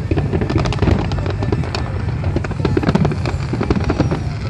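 A large fireworks display with many shells going off at once: rapid crackles and pops over a continuous low rumble of bursts.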